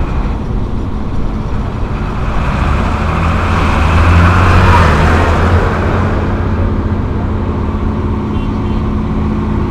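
Diesel tractor engines running steadily, with a New Holland 7940 tractor driving past close by; its engine and tyre noise swell to a peak about four to five seconds in and then fade.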